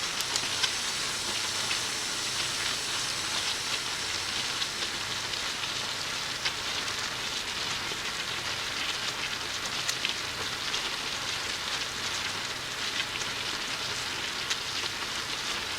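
Food frying in hot oil: a steady sizzle with frequent small crackles and pops.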